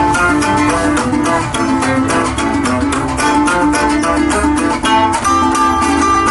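Instrumental Venezuelan string music: a bandola picking a fast melody over strummed cuatro chords, joropo style.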